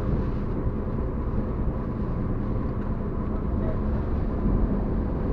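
Fishing boat's engine running steadily at sea, a low even rumble mixed with wind and wave wash.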